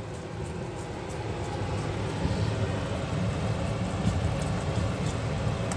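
Thick tamarind, ginger and jaggery mixture simmering in an iron kadai while being stirred with a wooden spoon: a low, uneven bubbling that grows louder about two seconds in. It is thickening as it cooks down.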